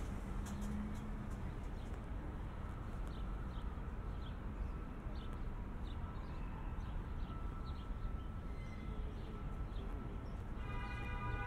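Small birds chirping in short, repeated, falling chirps over a steady low hum of city traffic, with a few light footstep clicks on paving. Near the end a sustained pitched, music-like tone starts up.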